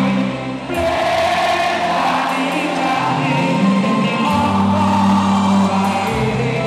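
Live campursari band playing, with sustained melody and bass notes under singing by what sounds like many voices together.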